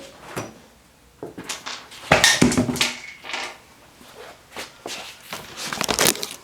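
Irregular clunks, knocks and scraping as a wheel is worked off a UTV's rear hub, loudest about two seconds in and again near the end.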